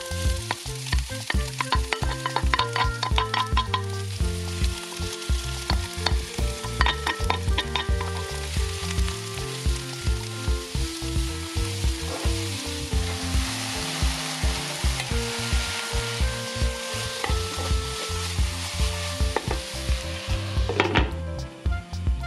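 Diced peppers, onion and garlic sizzling as they fry in olive oil in a frying pan, stirred with a wooden spoon that clicks and scrapes against the pan. The sizzle cuts off suddenly shortly before the end.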